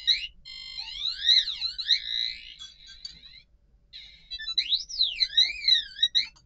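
Otto robot's piezo buzzer playing a run of its built-in sound effects: electronic tones that slide quickly up and down in pitch, mixed with steady notes and short beeps, with a brief pause a little past halfway.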